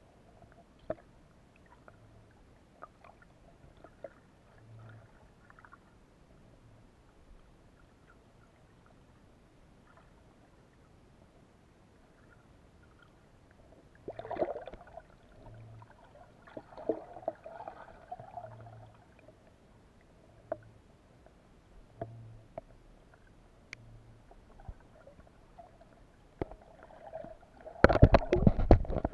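Underwater sound through an action camera's housing: scattered faint clicks, then gurgling water movement about halfway through and again a little after, and a loud sloshing burst near the end.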